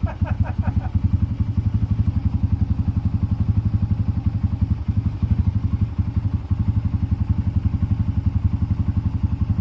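1990 Yamaha XT350's single-cylinder four-stroke engine idling steadily with an even, quick pulse, running on its newly installed dual carburetor.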